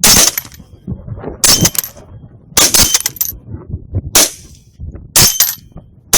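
A quick string of five loud gunshots, one every second or so, several with a second crack right behind it.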